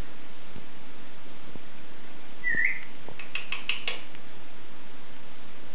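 Major Mitchell's cockatoo giving one short rising whistle, then a quick run of about five short clicking chirps.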